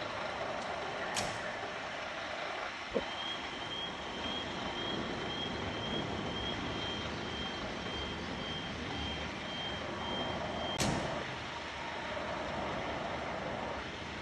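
Scania P320 fire pumper's diesel engine idling. Its air brakes give a sharp hiss about a second in and again near the end. A cab door shuts with a thump about three seconds in, then the reversing alarm beeps about twice a second for some seven seconds.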